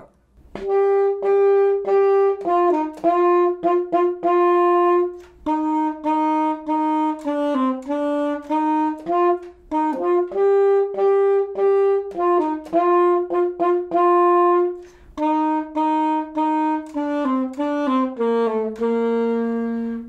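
Solo alto saxophone playing an unaccompanied beginner band melody of steady held notes, each tongued with short breaks between, ending on a long low note.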